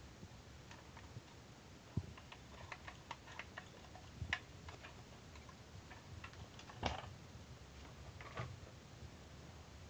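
Faint, irregular clicks and light taps from a plastic toy RC transmitter being handled, with a few louder knocks spread through.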